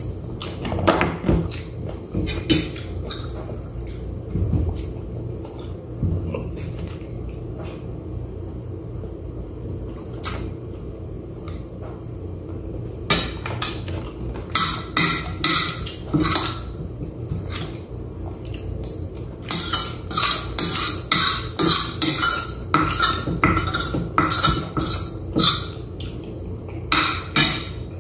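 A spoon clinking and scraping against a plate while eating, sparse at first, then frequent clicks in quick runs through the second half, over a steady low hum.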